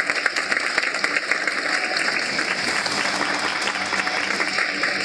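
Hall audience applauding steadily: dense, even clapping from many hands.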